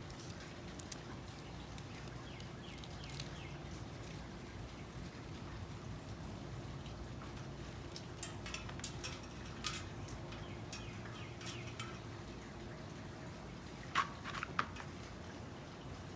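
Faint, scattered clicks and crackles of basket-weaving material being handled and worked, with two sharper clicks near the end, over a steady low hum.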